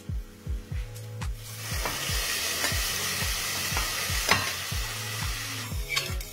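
Spaghetti going into a hot pan of zucchini rounds fried in olive oil and butter, the pan sizzling hard for about four seconds from a second and a half in, with a few clicks of a utensil against the pan. Background music with a steady beat runs underneath.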